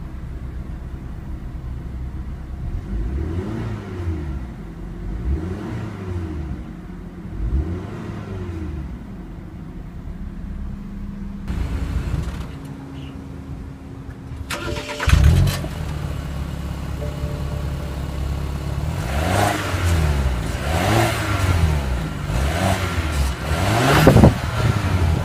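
BMW X1 sDrive28i's 2-litre twin-scroll turbocharged inline-four revved in park. Three throttle blips heard from inside the cabin, then, about halfway through, heard at the dual exhaust tips behind the car, a run of quicker revs, the last one the loudest.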